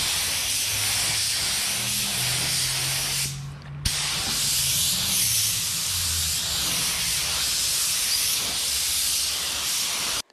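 Automotive paint spray gun laying down a first coat of sealer: a steady hiss of atomising air with a low hum beneath. The hiss breaks off briefly a little over three seconds in, then resumes.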